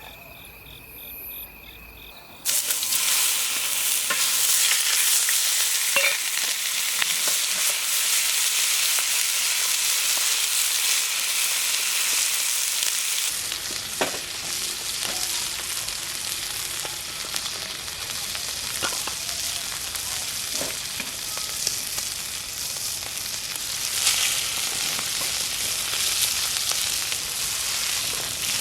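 Crickets chirping steadily, then about two and a half seconds in a loud, dense sizzle starts suddenly and carries on: meat frying as it cooks. A few sharp clicks of utensils sound over the sizzle.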